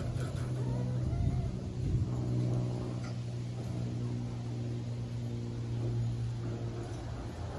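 A machine running with a steady low hum at one unchanging pitch, with a few fainter overtones above it.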